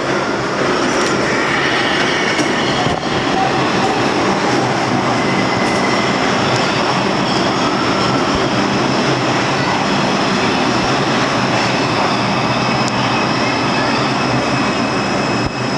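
An R142 New York City subway train running into an underground station along the platform. It makes a loud, steady rumble of wheels on rails, with thin high squeals from the wheels and brakes as it pulls in.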